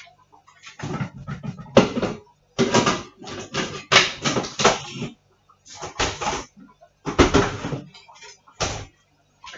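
Dishes, a bowl and utensils handled and knocked together at a kitchen sink, in irregular bursts of clattering with short pauses between them.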